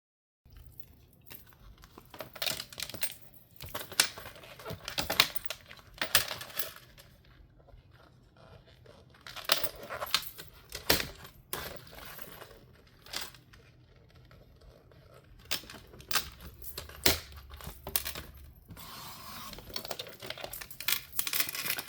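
Stapled paper coloring booklets being handled and cleaned up on a work surface. Irregular sharp clicks and knocks come with paper rustling and scraping.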